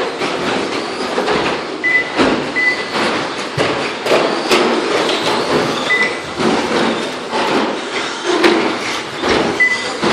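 Short course RC trucks racing on an indoor carpet track: a dense whirring rush of motors and tyres, broken by frequent sharp knocks and clatters. Four short high beeps sound over it at intervals.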